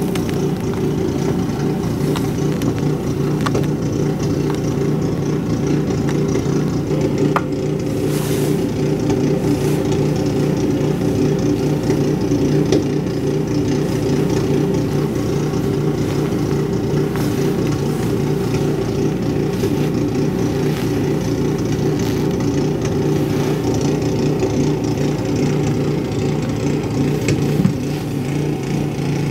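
Ariens Deluxe snow blower's single-cylinder engine running steadily at a constant speed.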